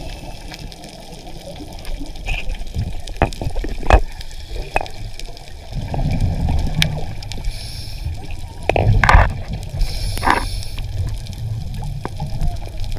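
Muffled underwater sound picked up by a diver's camera: water swirling and gurgling in low surges, with several sharp clicks and knocks.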